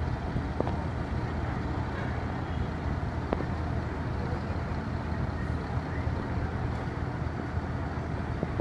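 Bus diesel engine running steadily as the bus manoeuvres slowly and turns, a low rumble muffled by the phone's microphone. Two faint ticks come under a second in and about three seconds in.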